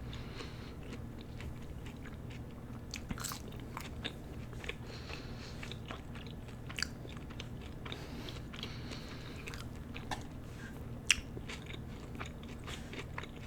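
Close-miked chewing of a mouthful of burger, with soft wet mouth clicks and smacks scattered throughout. A steady low hum from an air conditioner runs underneath.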